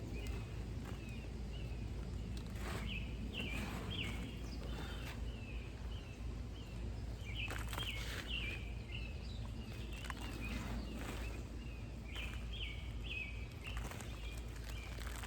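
A bird chirping over and over in short, high notes, with scattered rustling and scraping from hands sifting through container soil for potatoes, over a low steady background rumble.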